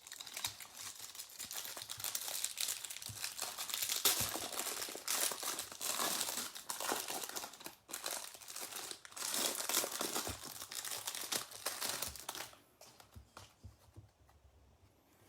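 Plastic wrapper of a Prestige football trading-card pack being torn open and crinkled, an irregular stream of rustling that dies away about three seconds before the end.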